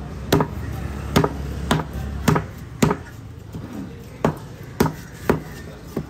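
A heavy curved fish knife chopping against a wooden cutting block as a parrotfish is cut. Eight sharp strikes come roughly half a second apart, with a pause of about a second and a half in the middle.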